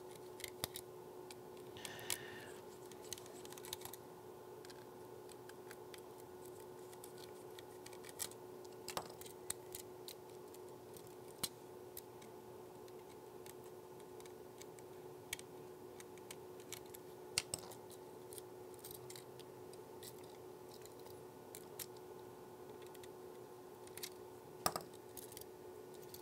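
Scattered small clicks and ticks of screws being undone with a precision Torx screwdriver on a laptop motherboard's heatsink, over a steady faint hum. A couple of sharper clacks near the end as the copper heatsink is lifted off the board.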